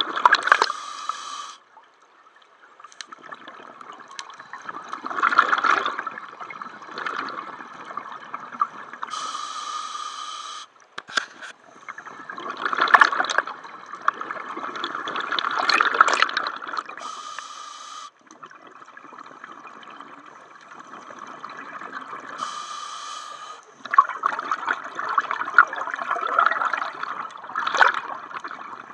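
Scuba diver breathing underwater through a regulator. Each breath in is a short hiss, and each breath out is a long rush of bubbles. The cycle repeats several times.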